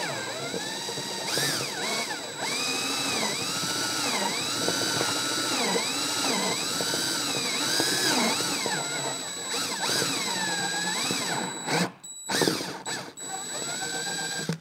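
DeWalt cordless drill turning a step bit slowly through the plastic of a motorcycle trunk lid, its motor speed rising and falling over and over as the trigger is eased on and off to avoid melting the plastic. The drill stops about twelve seconds in, followed by a few short bursts.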